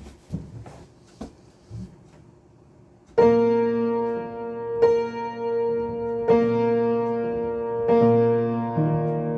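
A few faint knocks and clicks, then about three seconds in a piano begins: slow, sustained chords struck roughly every second and a half and left ringing.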